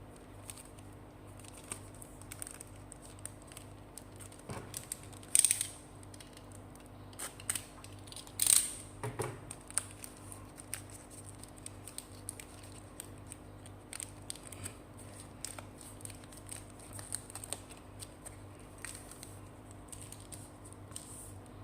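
Trading cards and their packaging being handled: a scatter of small clicks, taps and rustles, with two louder scraping snaps about five and a half and eight and a half seconds in.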